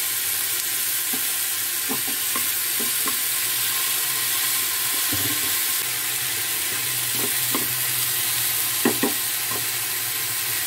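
Diced potatoes, onion and pointed gourd sizzling in oil in a frying pan, while a wooden spatula stirs them with scattered scrapes and knocks against the pan. The sharpest knocks come near the end.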